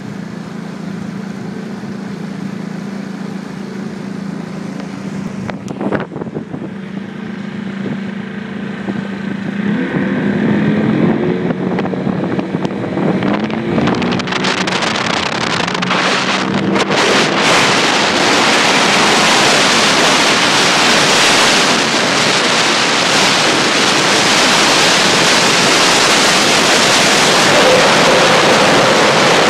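Motorboat engine running with a steady low hum, its pitch shifting as it speeds up after about a third of the way in. From about halfway on, rushing water and wind on the microphone build to a loud, steady rush as the boat gets under way.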